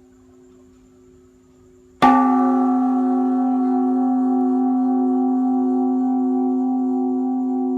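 Large Buddhist temple bell (đại hồng chung) struck once about two seconds in, then ringing on with a slow wavering hum. Before the strike, the faint ring of the previous stroke is dying away.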